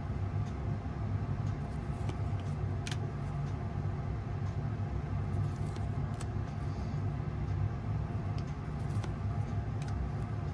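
Upper Deck Artifacts hockey cards being handled and shuffled from hand to hand, giving scattered light clicks and rustles, over a steady low hum from a running motor or appliance in the room.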